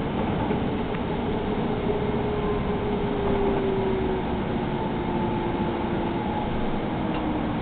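Inside a Hudson-Bergen Light Rail car: the steady rumble of the running light rail train, with an electric motor whine that falls slowly in pitch as the train slows into a station.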